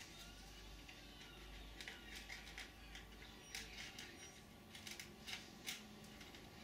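Hobby knife trimming soft flashing from a cast foam wing: faint, irregular small clicks and scrapes of the blade through the foam edge.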